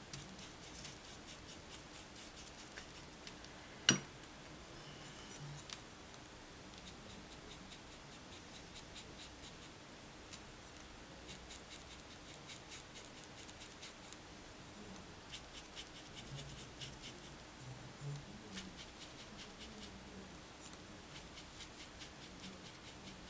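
Watercolour paintbrush working over crepe paper petals: faint, quick scratchy strokes in clusters, with one sharp click about four seconds in.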